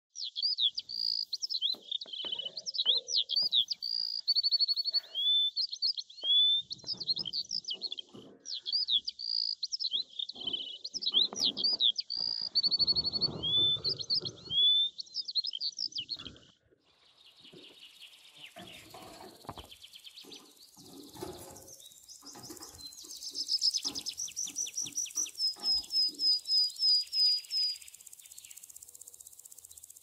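Budgerigar chirping and warbling in quick, swooping notes for about the first half. Then a budgie splashes in a shallow water bath, with a fast run of repeated chirps near the end.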